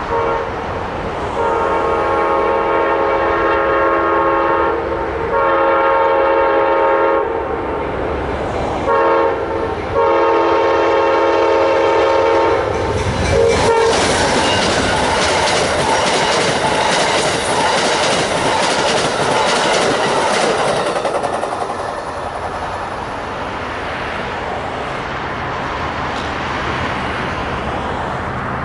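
Amtrak GE P42DC diesel locomotive sounding its multi-note air horn in the grade-crossing pattern of two long blasts, a short one and a long one. The passenger train then passes with a fast clickety-clack of wheels over the rail joints, which fades away after several seconds.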